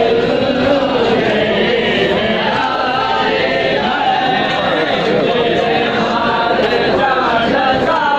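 A crowd of men chanting a noha, a mourning lament, together in unison, with many voices overlapping.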